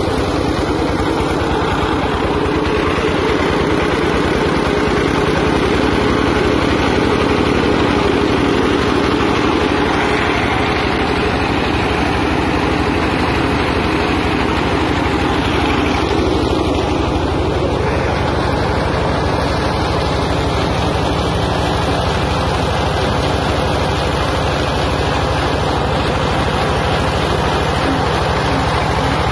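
Peanut-shell grinding mill running under load, driven by a small stationary engine: a steady, loud engine drone mixed with the noise of shells being ground and blown out of the chute.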